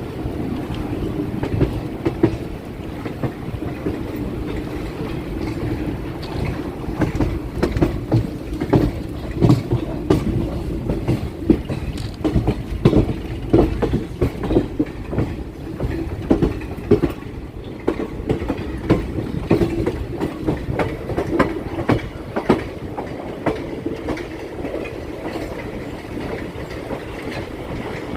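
Chennai MRTS suburban electric train running along the track: a steady low rumble with frequent irregular knocks of the wheels over the rails.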